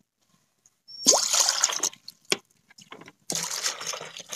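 Water in an aluminium karahi over a fire, heard as two splashing, hissing bursts about a second long each, the first about a second in and the second past three seconds, with a single click between them.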